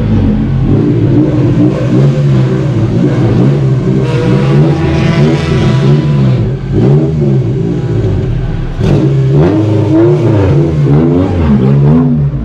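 Honda Civic race car's four-cylinder engine idling, with repeated throttle blips that send the revs up and back down.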